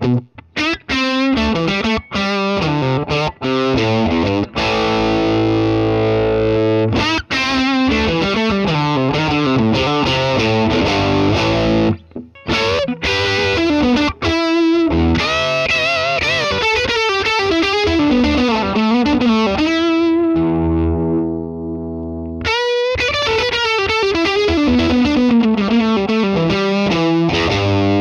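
Electric guitar played through a Crews Maniac Sound LOVEBOMB pedal preamp with its drive turned well up: distorted single-note lead lines with vibrato. A note is held about twenty seconds in, then there is a brief break before the playing resumes.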